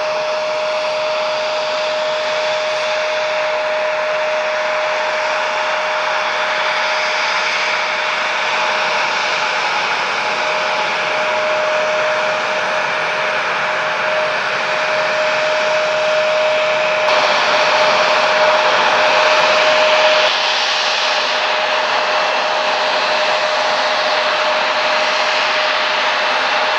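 Jet engines of a twin-engine JAL Boeing 767 airliner on approach, a steady roar with a held whine. The noise turns brighter and louder for a few seconds past the middle, and the whine drops out near the end of that stretch.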